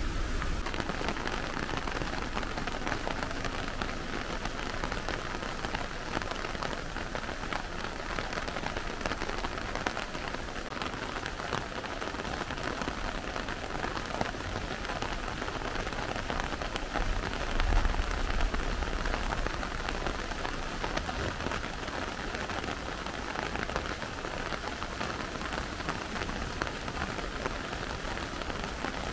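Steady, even hiss of rushing water from a muddy stream in flood after heavy rain, with a brief low rumble a little past halfway through.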